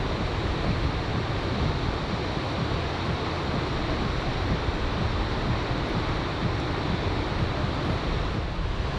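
Ocean surf breaking on a sandy beach in strong wind, with wind buffeting the microphone: a steady, even rush of noise.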